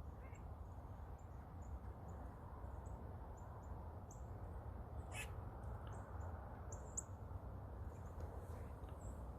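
Faint outdoor ambience: a steady low rumble with many short, high bird chirps scattered throughout, and one sharp click about five seconds in.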